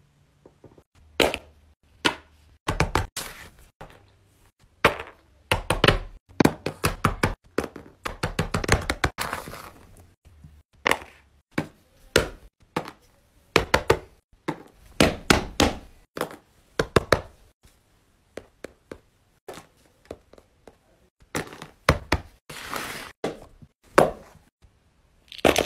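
Hands slapping down hard on a paper mat, many sharp thuds in quick irregular clusters, some much louder than others.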